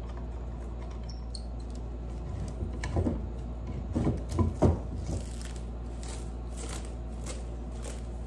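Metal bar clamps being loosened and lifted off a glued wood block, with a few clattering knocks between about two and a half and five seconds in. Then plastic wrap crinkles as it is peeled off the block, over a steady low hum.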